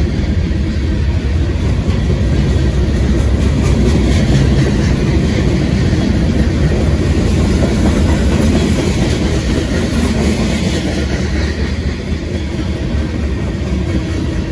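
A long freight train's cars, boxcars then tank cars, rolling steadily past close by. The steel wheels make a continuous loud rumble and clatter on the rails.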